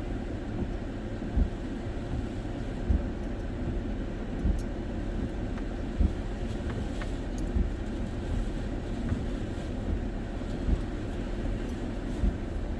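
Steady low rumble of hurricane wind and rain heard from inside a car, with a low thump repeating about every one and a half seconds.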